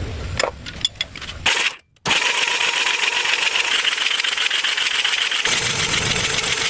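A few clicks, a brief cut to silence, then a small motorised tool running steadily with a dense whirring noise.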